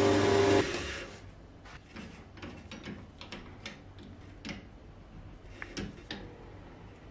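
Wood lathe running with the workpiece spinning, switched off about half a second in and winding down. Then scattered light metallic clicks and knocks as the scroll chuck is worked with its T-handle key and a new blank is fitted into its jaws.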